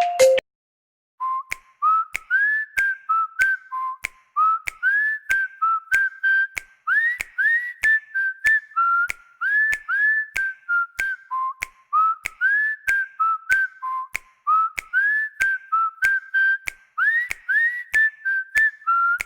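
Huawei P30 lite ringtone: a whistled melody of short notes, many sliding upward, over a steady beat of sharp clicks. It starts about a second in, after a brief note and a short gap.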